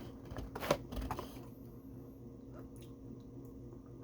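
A few soft clicks and handling noises in the first second and a half, the loudest just under a second in, then quiet room tone with a faint low hum.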